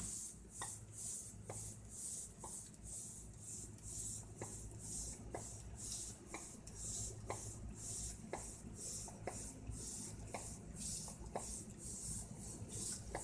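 A hand air pump being worked at the wall of an inflatable paddling pool, a steady rhythm of hissing air strokes about two a second, with a faint click about once a second.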